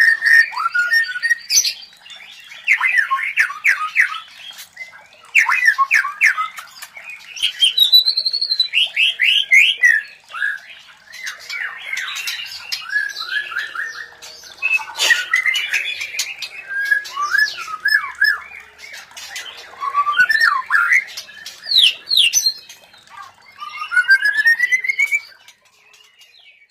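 White-rumped shamas calling while mating: bursts of rapid, sweeping whistled notes mixed with harsh squawking chatter, coming every couple of seconds.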